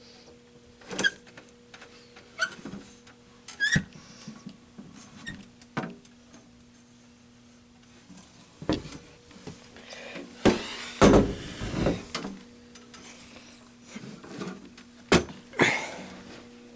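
Irregular clicks and knocks of hands handling objects, with a louder scraping rattle about ten to twelve seconds in, over a faint steady electrical hum.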